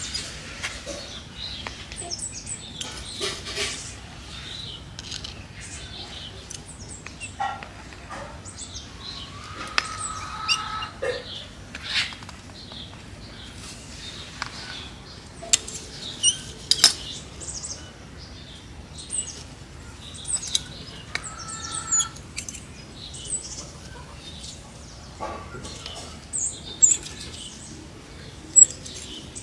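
Scissors snipping chili plant stems among rustling leaves, in scattered sharp clicks, with birds chirping now and then.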